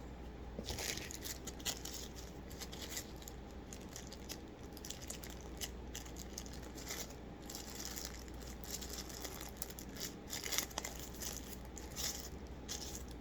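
Plastic packaging crinkling and rustling in short, irregular bursts as a phone charger adapter and its charging cable are handled.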